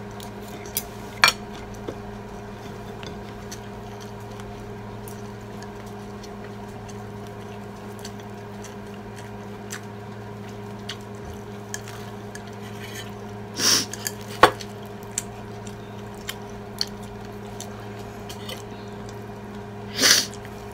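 Forks and spoons clicking and scraping on ceramic plates during a meal, scattered small clinks over a steady low hum. Two short, louder noisy sounds stand out, one about two-thirds of the way through and one near the end.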